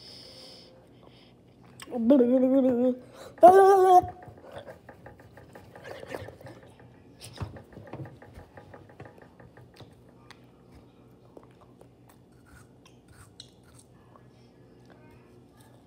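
A child's voice makes two drawn-out wordless vocal sounds, one after the other, about two seconds in. After that come only faint mouth and eating sounds with small clicks as he eats a popsicle.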